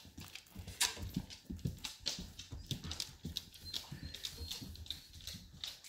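A rabbit biting and chewing a cucumber slice held in a hand: an irregular run of small crunches and clicks, several a second.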